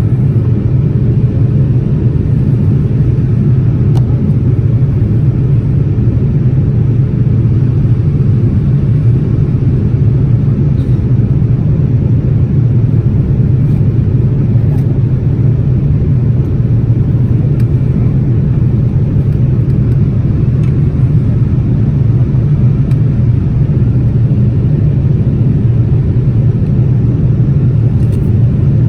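Steady low rumble of a Boeing 787-10 in climb, heard inside the passenger cabin: engine and airflow noise, even and unchanging.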